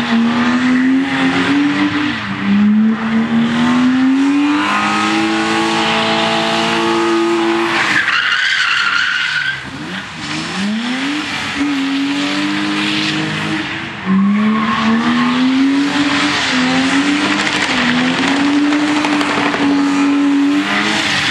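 BMW E30's 2.7-litre straight-six held at high revs while the rear tyres spin and squeal in a smoky burnout and donuts. A little over nine seconds in, the revs fall away briefly, then climb again and hover high as the tyres keep squealing.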